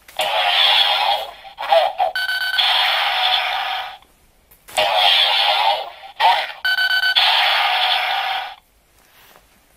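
Electronic sound effects played through the small speaker of a Chalice Arrow toy with its Chalice Rouzer attached. The same sequence plays twice, each run about four seconds long with a short beeping tone in the middle.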